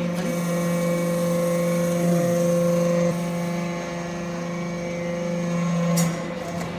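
Hydraulic metal briquetting press running: a steady hum from its hydraulic power unit. The tone changes and the sound drops slightly about three seconds in, and there is a sharp click near the end.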